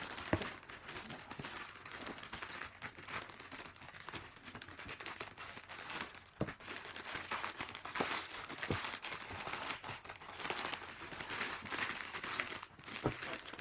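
Packaging crinkling and rustling as a wrapped parcel is handled and opened, with scattered clicks and knocks.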